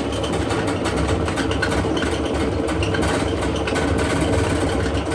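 Samsung washing machine running with heavy bricks in its drum: a steady motor hum and rumble under fast, irregular knocking as the bricks strike the drum.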